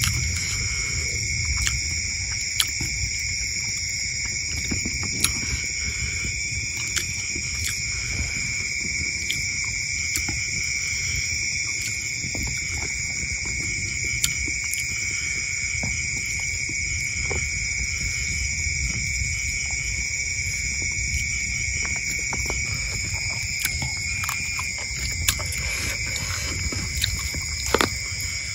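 Night insect chorus: a steady, unbroken high-pitched buzz at several pitches over a low rumble, with a few sharp clicks scattered through it.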